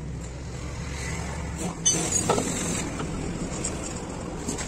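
A few sharp metal clicks and knocks, about two seconds in, from the truck's air brake chamber parts and tools being handled, over a steady low rumble.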